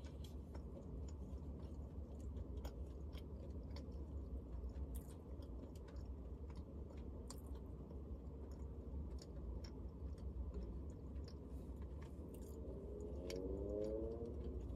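A person chewing food, with scattered light clicks and crinkles from a plastic food container, over a steady low hum.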